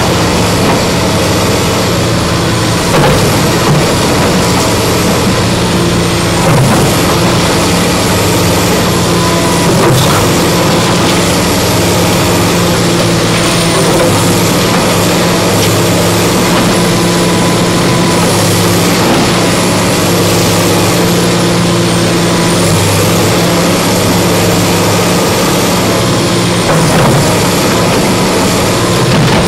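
Komatsu tracked hydraulic excavator's diesel engine running steadily under load, with a high hydraulic whine that rises and falls as the arm and bucket move. A few dull knocks come through as the bucket works against the stone wall.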